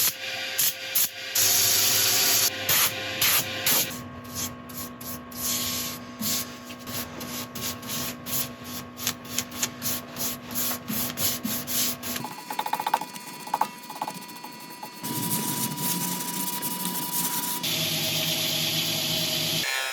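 Hand sanding and rubbing on wood in a series of short cuts: first loud, uneven strokes, then an even run of strokes about two to three a second over a steady low hum, then quieter scraping. The sound changes abruptly several times.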